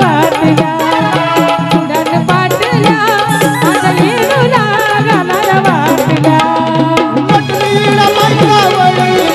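Live Marathi devotional folk song: a woman singing over a fast, steady beat on dholki and other hand drums.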